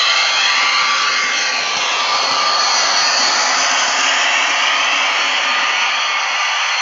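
HO-scale Athearn Genesis SD45-2 model locomotive running under throttle: its MRC sound decoder plays a diesel prime-mover sound through a small speaker, a steady whirring drone.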